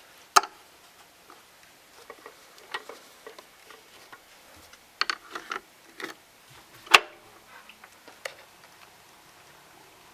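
Scattered clicks and light knocks from handling a vinyl record and record player: a sharp click right at the start, a few soft taps in the middle, and a louder click about seven seconds in.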